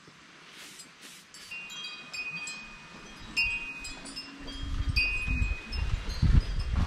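Wind chimes ringing with several clear high notes that come and go. A low rumble builds up under them in the second half.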